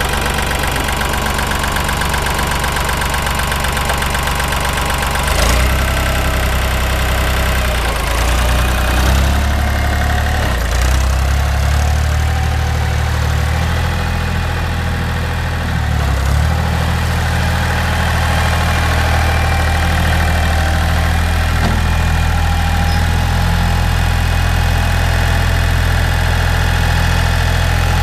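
Ford 1710 compact tractor's three-cylinder diesel engine running as the tractor drives about. The engine note changes several times with throttle and load through the middle, then settles to a steady run for the last ten seconds or so.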